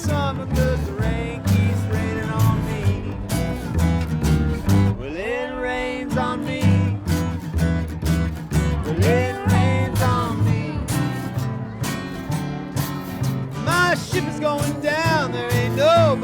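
Acoustic string-band music with no singing: plucked guitar over a steady bass beat, and a lead melody that slides up and down in pitch in swooping arcs, most clearly near the end.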